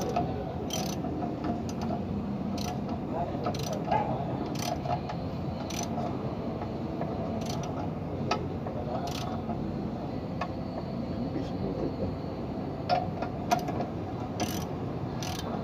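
Ratchet wrench and hand tools clicking irregularly on a truck clutch pressure plate's bolts as the new clutch is fitted, over a steady background hum.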